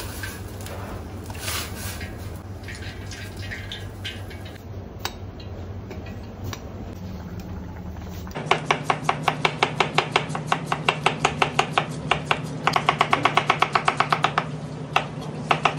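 A stockpot at a rolling boil on a gas range, a steady hiss and hum with a few clinks of a metal skimmer. About eight seconds in, a chef's knife starts chopping onion on a plastic cutting board in quick, regular strikes.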